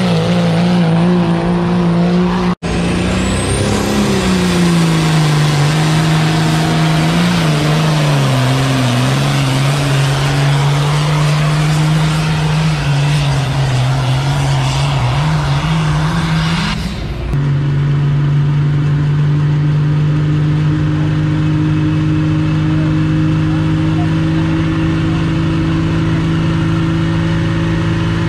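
Diesel engines of pulling trucks and tractors running at full throttle under load, dragging a weight sled: a loud engine drone whose pitch drops and wavers. The sound cuts out abruptly about two and a half seconds in and changes sharply near 17 seconds to a steadier drone.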